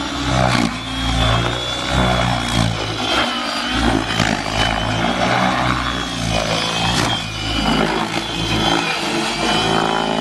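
Align T-Rex 600E electric RC helicopter in aerobatic flight: steady rotor noise with a high motor whine that rises and falls as it manoeuvres.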